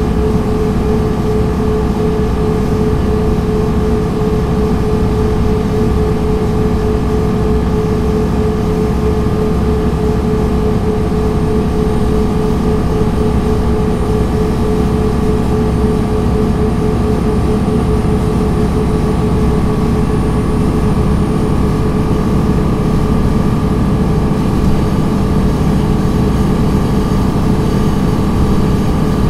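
MAN NG 313 articulated city bus running steadily while under way: a constant low drone with a steady tone above it and no gear changes.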